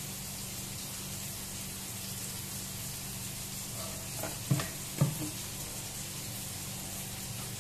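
Onions frying in oil in a pan on a gas stove: a steady hissing sizzle. Two sharp knocks come about halfway through, half a second apart.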